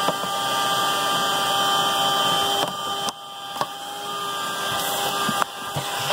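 Vacuum cleaner running steadily with a constant whine as its nozzle works over carpet. Its level drops for a moment about three seconds in, with a few small clicks.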